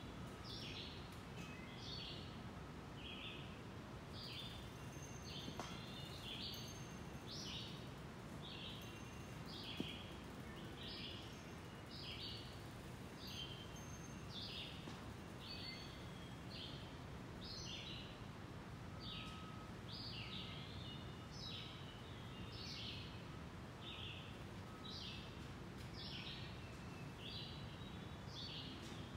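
Woodland songbirds chirping: an unbroken run of short, high notes, about two a second, over a faint steady hiss of outdoor ambience, with a single faint click about ten seconds in.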